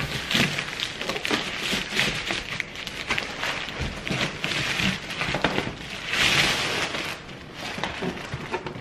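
Crinkly rustling of a thin wrapping bag as a hard-shell carry-on suitcase is pulled out of it, in uneven bursts with a louder stretch about six seconds in.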